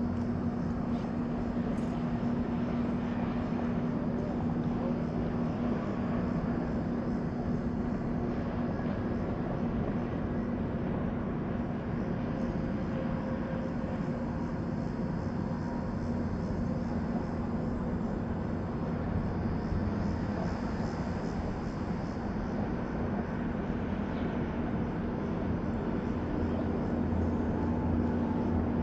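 Steady rushing roar of a fast-flowing flooded river, with a constant low hum underneath.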